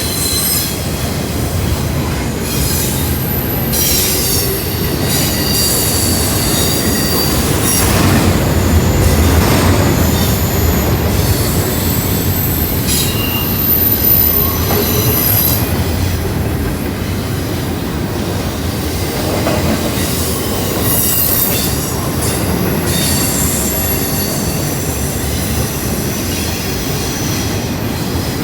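CSX intermodal freight train rolling past, a steady heavy rumble of cars on the rails with high-pitched wheel squeal that comes and goes.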